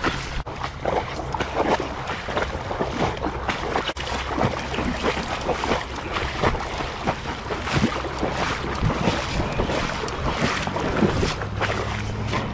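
Wind buffeting the microphone over moving water, with irregular crackling gusts and a faint steady low hum underneath.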